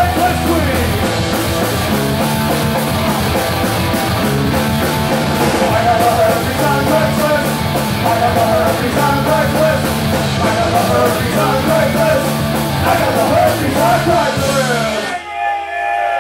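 Live punk rock band playing loud, with distorted electric guitars, bass, drums and a singer. About fifteen seconds in the band stops together and a guitar chord is left ringing out alone over a low amplifier hum.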